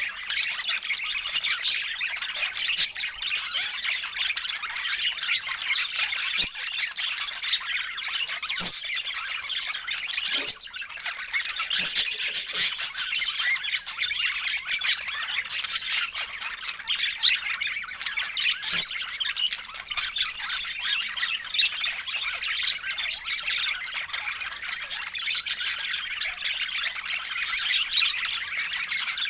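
Budgerigars chattering and squawking continuously, with a few sharp clicks among the calls.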